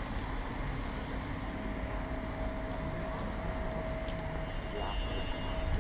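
Outdoor street noise: a low steady rumble with a thin steady hum running through most of it.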